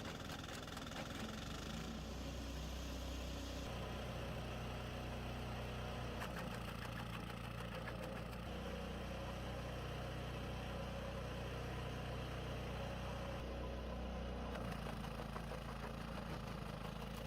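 Diesel engine of a wood chipper running steadily, its note shifting a little about four seconds in and again near the end.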